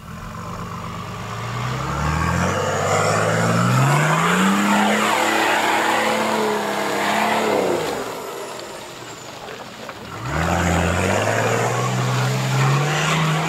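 Land Rover Defender's engine revving hard under load, its pitch climbing for several seconds, then dropping away, then climbing again near the end, with the noise of tyres churning through mud alongside.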